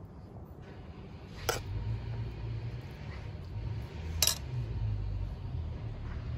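A metal spoon scooping stuffing from a steel pan into a hollowed eggplant, clinking sharply twice, with a low rumble underneath.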